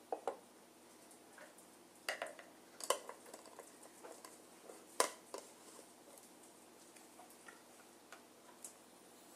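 Glass honey jars and their lids being handled: a few sharp clicks and knocks of glass and lid being set down and capped, the loudest about five seconds in, with fainter taps later.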